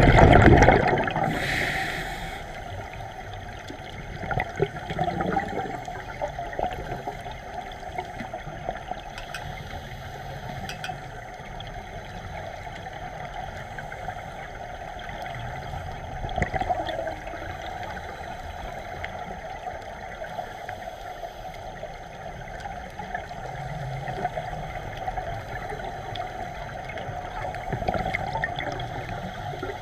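Scuba regulator exhaust bubbles gurgling underwater, loudest in the first second or so, then a steady hiss with softer bubbling swells now and then.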